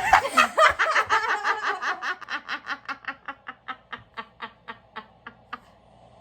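A woman laughing: a long run of short "ha" pulses that slow down and fade, dying away about five and a half seconds in.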